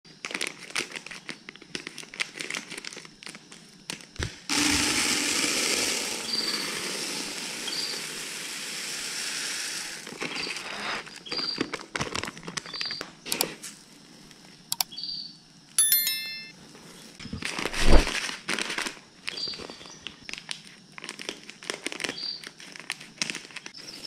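A plastic packet of birdseed mix crinkles and is cut open. The seed then pours from the packet into a plastic basin as a steady hiss for about five seconds. More handling and a second short pour of seed follow later.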